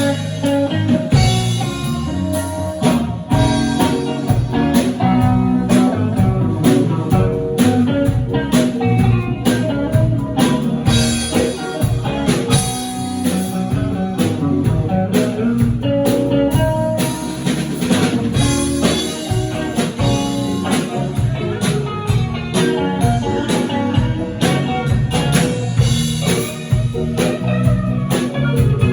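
Live band playing at a sound check: guitar over a drum kit, with drum hits throughout and no breaks.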